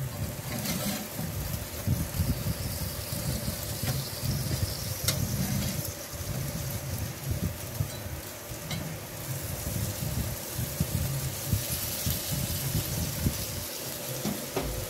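Salmon steaks sizzling on a charcoal grill grate as a metal spatula flips them, with a few sharp clicks over the steady sizzle.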